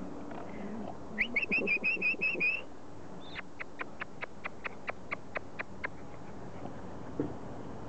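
A bird calling: a quick trill of about eight high chirps about a second in, followed by a run of sharp ticks at about five a second.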